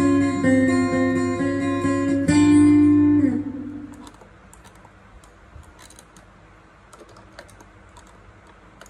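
Electric Stratocaster guitar played through a Zoom GFX 8 multi-effects pedal: a run of single notes ends on a held note that fades away about three and a half seconds in. Then scattered faint clicks as a hand works the pedal's knobs and buttons.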